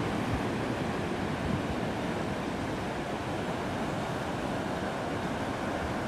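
Atlantic surf washing steadily onto the beach, an even rushing noise with a low rumble of wind on the microphone underneath.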